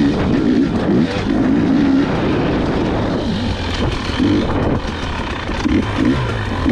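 Husqvarna dirt bike engine running under a rider's throttle, its note rising and falling over and over as it is ridden along a rough trail.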